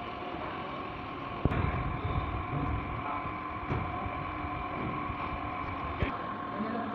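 A vehicle engine running steadily, with a sharp knock about one and a half seconds in, louder low rumbling after it, and a smaller knock near the end.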